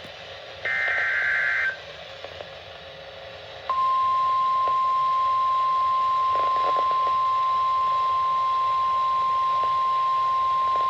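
NOAA Weather Radio alert: a one-second burst of buzzy SAME digital header tones, then, after about two seconds of faint radio hiss, the single steady warning alarm tone starts about four seconds in and holds at one pitch.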